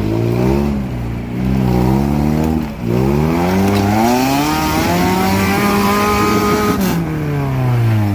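Off-road 4x4 engine revving hard, with two short revs and then a long climb in pitch. The engine holds high for about two seconds before it falls away near the end.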